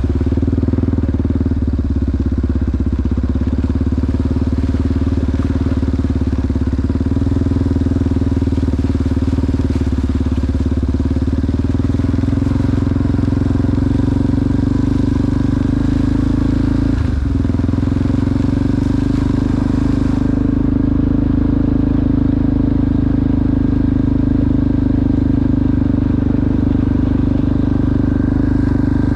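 ATV engine running at a steady pace while riding, with one brief dip in engine pitch a little past halfway through.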